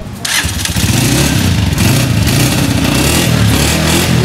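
A brand-new Honda CG 125 Special Edition's single-cylinder four-stroke engine starts on its electric starter, catching about half a second in, then runs loudly, its pitch rising and falling as the throttle is blipped.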